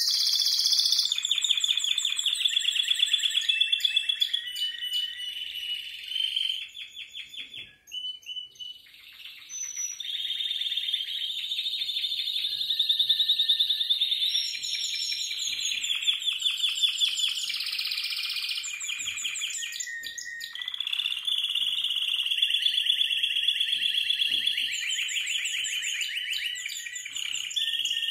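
Timbrado canary song: long runs of rapid, rolling trills and ringing metallic notes, held almost without a break apart from a short lull about eight seconds in.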